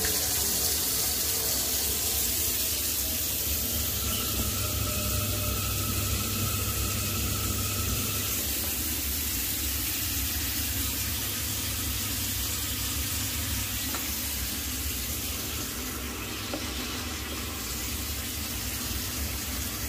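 Water running steadily from a tap into a sink, an even rushing hiss with a faint whistle between about four and eight seconds in.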